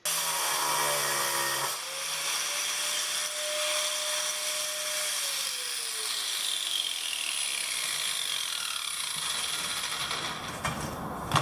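Angle grinder fitted with a 4.5-inch dry-cutting diamond blade running over a steady hiss. Its motor tone drops in pitch about halfway through as the grinder slows.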